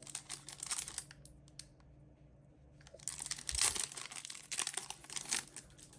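Foil booster pack wrapper crinkling and tearing as a trading-card pack is opened by hand: a short rustle, then a longer spell of crackling and ripping.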